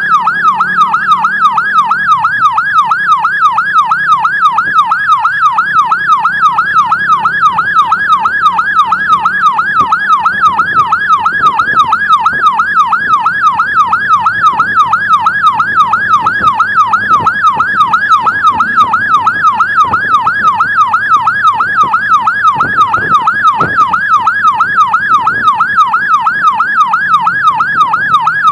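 Emergency vehicle siren in fast yelp mode, its pitch sweeping rapidly up and down in an even, unbroken cycle, with vehicle engine and road noise underneath.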